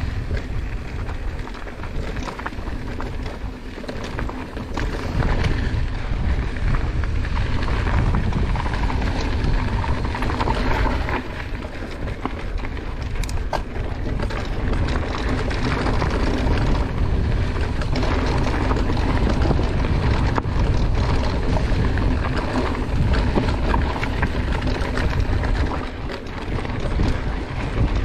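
Mountain bike ridden along a rocky dirt singletrack, heard from a handlebar-mounted camera. Wind buffets the microphone, the tyres rumble over dirt and stones, and the bike rattles, with occasional sharp clicks and knocks. The ride gets louder about five seconds in.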